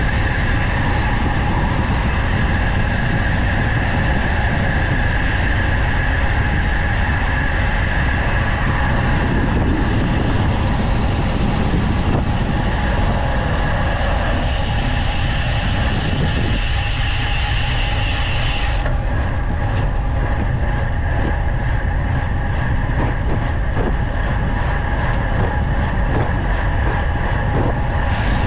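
Wind rush and road rumble on a road bicycle's camera microphone during a fast descent, loud and steady. Its hissing top end drops away about two-thirds of the way through.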